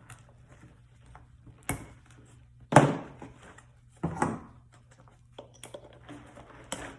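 Pliers pulling a staple out of an armrest console's upholstery cover, with the plastic shell being handled: a few sharp clicks and knocks, the loudest about three seconds in.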